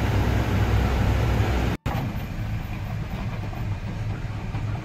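Truck running down a road, heard from inside the cab as a steady low engine and road rumble. It cuts out for an instant about two seconds in, then carries on a little quieter.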